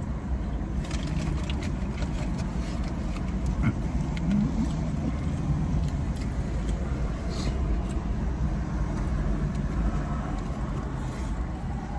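Steady low rumble of a car's cabin with the engine running, with a few faint clicks and rustles in the first few seconds.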